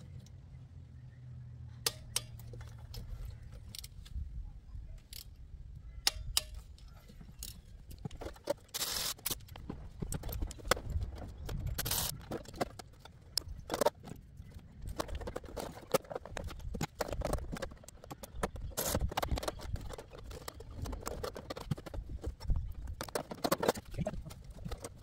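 Irregular metallic clicks and clinks of a ratchet and a click-type torque wrench as spark plugs are threaded into an M113 V8 and tightened to 25 newton metres.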